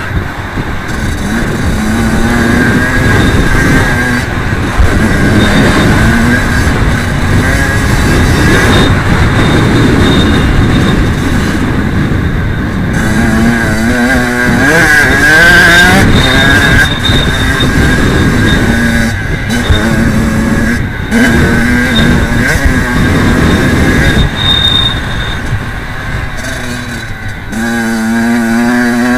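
Kawasaki KX85 two-stroke motocross bike engine revving hard and falling back again and again as the throttle is opened and chopped through corners and jumps, with a few sudden brief cuts. The engine noise is mixed with a steady rushing noise.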